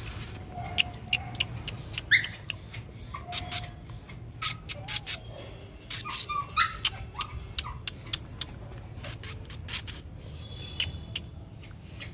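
A string of sharp, irregular clicks and snaps, sometimes several a second, made to catch a Rottweiler puppy's attention, with a few short faint whines between them.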